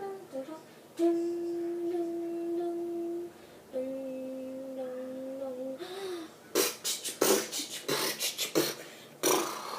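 A person hums two long, steady notes, the second lower than the first. Then come about eight quick, sharp, breathy sniffs in a row, trying to bring on a sneeze that does not come.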